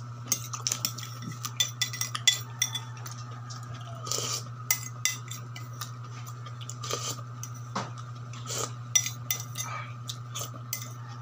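A metal spoon clinking and scraping against a plate while someone eats from it: many short, irregular clinks. A steady low hum runs underneath.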